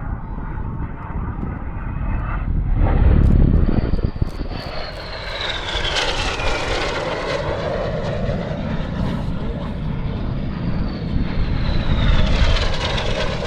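Red Arrows BAE Hawk T1 jets roaring past low. The high engine whine drops in pitch as a jet passes, about four seconds in and again near the end.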